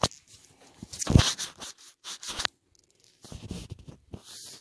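Close-miked eating sounds: bites and chewing with crunching and sharp mouth clicks, in irregular bursts with short gaps, the loudest about a second in.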